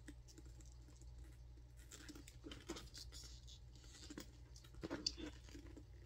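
Faint clicks and rustling as hands unhook the metal clasps of a Coach Pepper satchel's crossbody strap from its handle hardware, with one sharper click about five seconds in.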